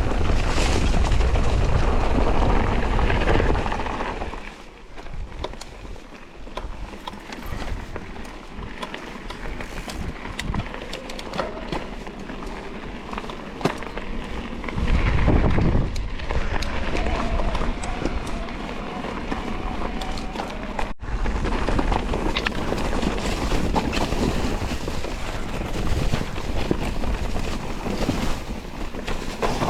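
Electric mountain bike ridden down a rough trail: tyres rolling over dirt and rocks, with constant rattling knocks from the bike. Wind buffets the microphone for the first few seconds and again around the middle, and the sound drops out for an instant about two-thirds of the way through.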